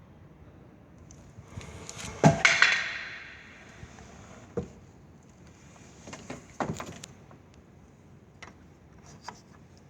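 A few metal clanks and knocks from handling metal parts. The loudest comes about two seconds in and rings on briefly; two or three smaller knocks follow. No saw is running.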